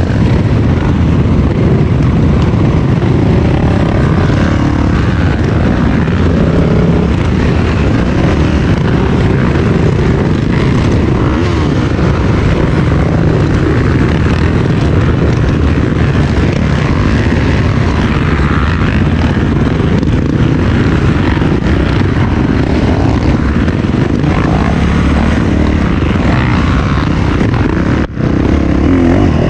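Trail motorcycle running under way on a dirt trail, its engine drone mixed with heavy low wind rumble on the microphone.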